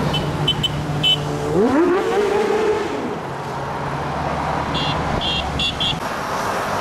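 A stream of motorcycles passing on a dual carriageway, one engine revving up sharply about one and a half seconds in and holding high briefly. Clusters of short, high horn beeps sound near the start and again near the end.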